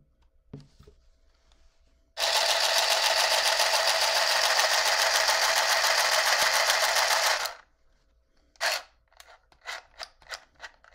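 Battery-powered handheld mini sewing machine stitching a pants hem: a loud, fast, even rattle of its needle mechanism that starts about two seconds in, runs for about five seconds, then stops abruptly. A click and a few small ticks of handling follow.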